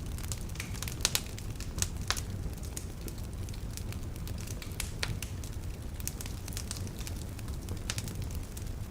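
Wood fire burning in a fireplace, crackling with irregular sharp pops over a low steady rumble; the loudest pops come about a second in and shortly after.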